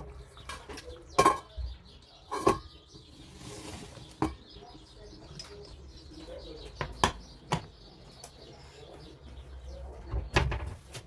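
A metal ladle clinking and knocking against a stainless steel cooking pot as soup is dished out, with the pot's lid set down with a clank. There are several separate sharp knocks, the loudest about a second in and another near the end.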